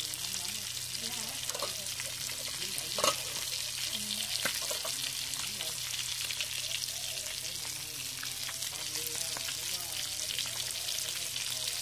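Salted cá mè fish frying in hot oil in a wok, the oil sizzling and crackling steadily around the browned, nearly done pieces, with one sharp pop about three seconds in.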